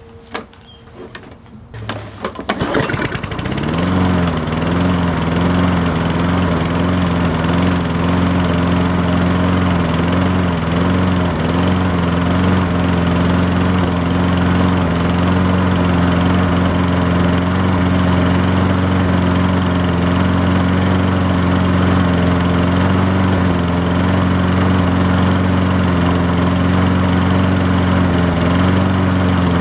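Toro Personal Pace mower's single-cylinder four-stroke engine, pull-started: it catches about two and a half seconds in and then runs steadily at speed. The speed wavers briefly a few seconds after it catches, the slight surge of six-month-old gas with some water in it. It winds down at the very end as it is shut off.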